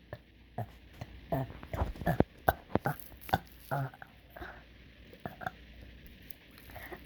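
A run of short, abrupt burps, a dozen or so close together in the first four seconds, then quieter.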